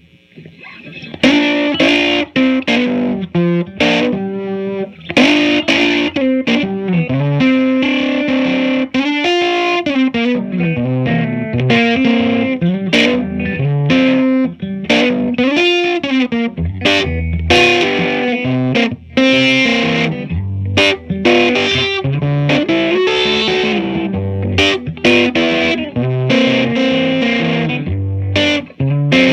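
1957 Gibson ES-225TD electric guitar on both P-90 pickups, played through an Allston amp with its volume all the way up and no reverb, giving a nice overdriven tone that stops short of hard-rock distortion. The playing is a run of notes and chords with some bends, starting about a second in.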